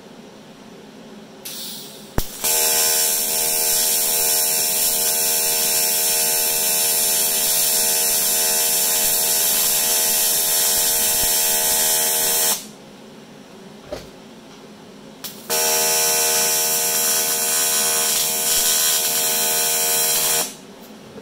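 AC TIG welding arc on aluminium buzzing steadily with a hiss, as a tube handle is welded to the boat hull. There are two runs, one of about ten seconds and, after a pause of about three seconds, one of about five; each starts and stops abruptly.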